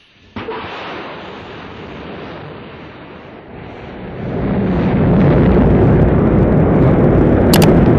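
Rocket launch: a sudden loud hiss about a third of a second in, swelling about four seconds in into a much louder, deep, steady rumble as the engines ignite and the rocket lifts off.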